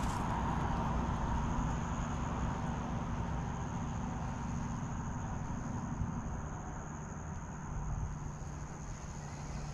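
Outdoor background: a steady low rumble under a continuous high-pitched insect buzz.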